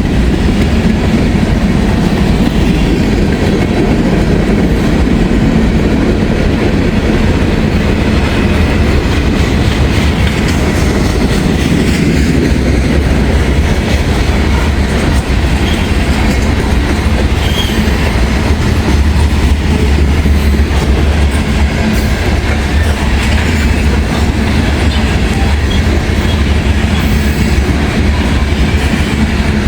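CSX freight train passing, a loud steady rumble of cars rolling on the rails with a fast clickety-clack of wheels over rail joints.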